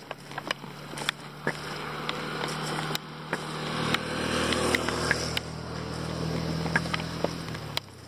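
A motorcycle engine running at a steady pitch as it comes closer and passes, growing louder toward the middle and cutting off just before the end. Irregular sharp ticks from footsteps on the road edge sound alongside it.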